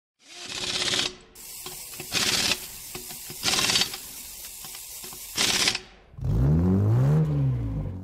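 Logo-intro sound effects: four whooshes with fast mechanical clicking and ratcheting between them, then a deep rev that rises and falls in pitch and cuts off.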